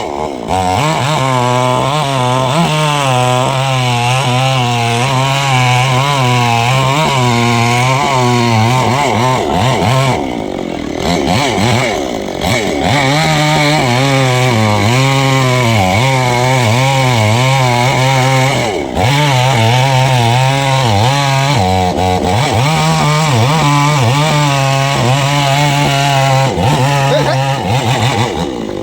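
Chainsaw cutting into a tree, its engine running hard with the pitch wavering up and down as the chain bites and eases. Twice the engine briefly drops back, about ten seconds in and again a little before twenty seconds, before it picks up again.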